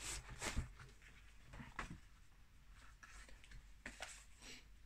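Faint, scattered rustles and soft knocks of a cardboard box being handled and pulled out of its outer packaging.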